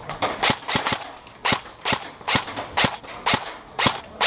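Airsoft guns firing in quick, sharp cracks, in short bursts of one to three shots about twice a second, during an exchange of fire.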